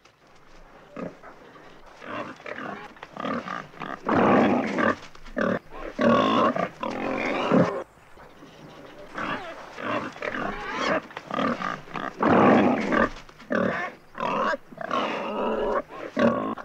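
Wild boar calling in irregular bursts of harsh grunts and squeals, loudest about four to seven seconds in and again around twelve seconds in.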